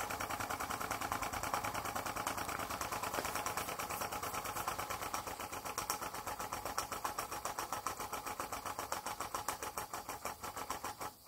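Graham Industries VR1A double-acting miniature steam engine running on live steam, with rapid, even exhaust beats as it drives a belt-driven fan. The beats turn less even near the end.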